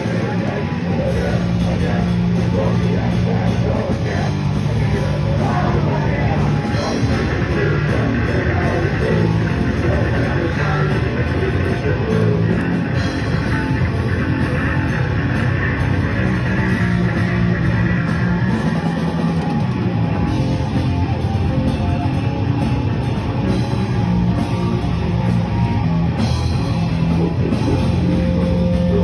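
Heavy rock music with distorted electric guitar, bass and a drum kit, played steadily without a break.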